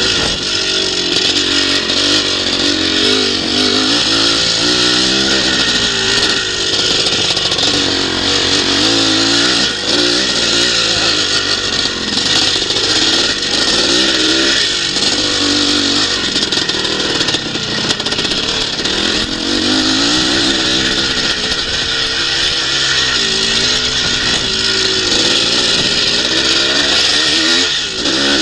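Classic twinshock motocross bike's engine heard from on board, revving up and dropping back again and again as the rider goes through corners and straights, over a steady rush of noise.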